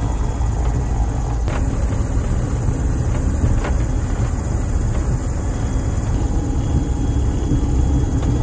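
Twin-engine Diamond DA42 heard from inside the cockpit while taxiing: a steady, loud low drone of the engines and propellers at low power. The sound shifts abruptly twice, about a second and a half in and about six seconds in.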